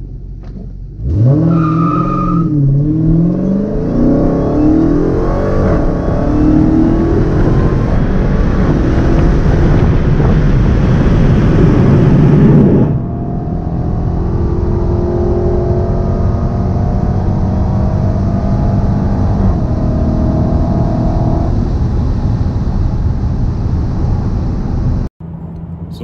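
Stock 2016 Dodge Challenger Hellcat's supercharged 6.2-litre Hemi V8, heard from inside the cabin, launching hard about a second in. It pulls at full throttle through several automatic upshifts, its pitch climbing and dropping back at each shift, for about twelve seconds of a standing half-mile pass. It then cuts back sharply as the throttle is lifted, and the car coasts at high speed with engine and wind noise until a hard cut near the end.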